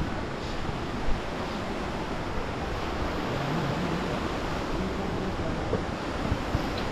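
Waterfall: a steady rush of falling water, with a single brief knock about a second in.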